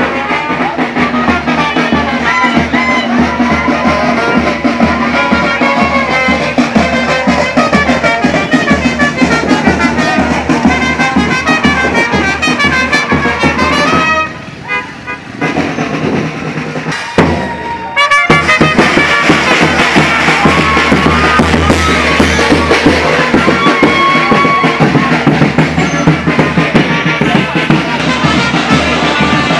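Street brass band with trumpets and drums playing a lively tune while marching. The music drops to a quieter stretch for a few seconds about halfway, then comes back at full level.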